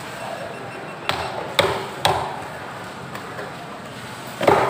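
Sharp chopping blows of a knife on a wooden chopping block: three chops about half a second apart, then a louder cluster of blows near the end, over steady background noise.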